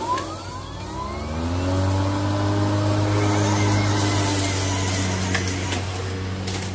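Kobalt 40V brushless self-propelled lawn mower starting up: the electric motor and blade spin up with a rising whine, then run at a steady pitch as the mower is pushed through tall grass.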